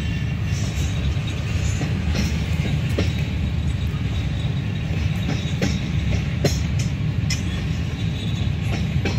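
Freight train of covered hopper cars rolling slowly over a grade crossing: a steady low rumble, with irregular clicks and knocks from the wheels passing over the rails.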